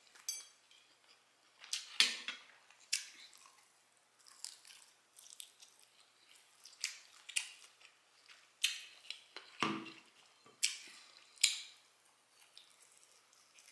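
Close-miked chewing and lip-smacking of a person eating barbecue ribs: irregular short wet smacks and clicks, about a dozen of them, a few seconds apart or closer.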